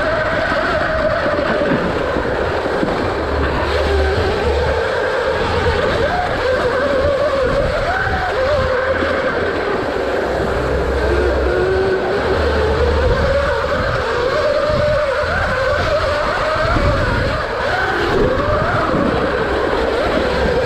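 Electric dirt bike's motor whining continuously, its pitch rising and falling as the bike speeds up and slows down, over a steady rumble.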